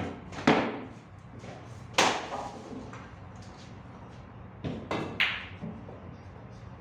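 Sinuca (snooker) balls clacking: sharp knocks right at the start and about half a second in, a loud one at two seconds, and a quick run of three around five seconds, as the cue ball is struck and balls hit each other and the cushions.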